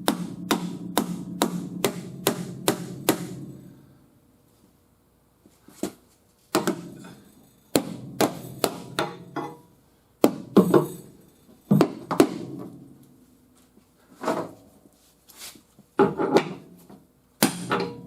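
Hammer blows on a car's sheet-metal quarter panel, struck in quick runs of about three blows a second with short pauses between runs, each blow leaving a brief metallic ring.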